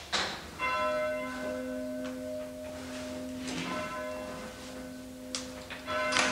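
A single church bell tolled three times, about two and a half to three seconds apart, each stroke ringing on with a low hum as it slowly fades, with sharp knocks as it is struck. It is tolling to call people to a morning church service.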